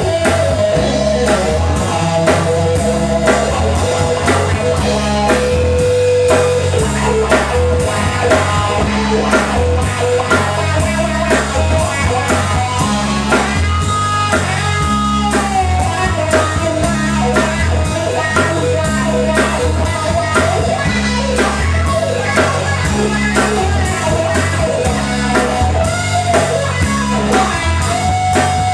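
Live band playing a groove-based rock instrumental: guitar and drum kit over a repeating bass line, with pitch-bending melodic lines in the middle.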